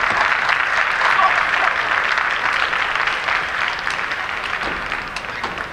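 Arena crowd applauding the end of a table tennis rally, the clapping dying down near the end.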